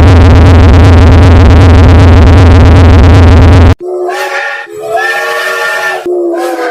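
Very loud electronic music-like sound with a heavy low hum that cuts off suddenly after about three and a half seconds. It is followed by a run of pitched whistle-like tones in separate, slightly bending notes.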